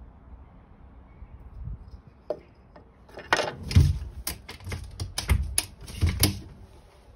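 A door being handled and pushed open: a quick run of sharp clicks and knocks starting about three seconds in, with a last knock near the end.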